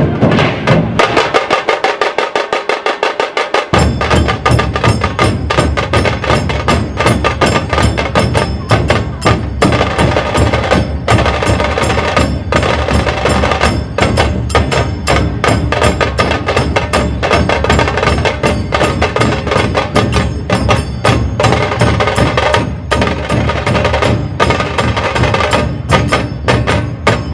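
Dhol tasha ensemble playing a fast, driving rhythm: the crisp, rapid stick strokes of the tasha drums run throughout. The deep dhol beats drop out for a couple of seconds near the start and then come back in heavily. The playing stops right at the end.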